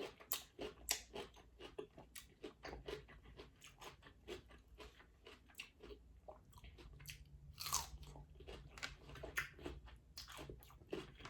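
Close-miked biting and chewing of a raw cucumber, a long run of small crisp crunches.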